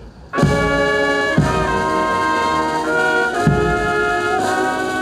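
Brass band playing slow, held chords that change about once a second, with a short break right at the start before the music comes back in.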